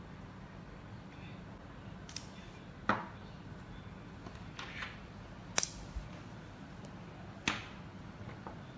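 Small magnetic pen pieces clicking as they snap together, several sharp separate clicks a second or two apart with a few softer ticks between.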